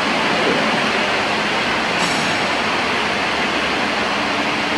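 A steady, loud rushing noise with a faint low hum under it, unchanging throughout.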